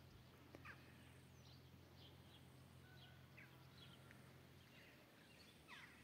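Near silence: a faint low hum with scattered faint bird chirps.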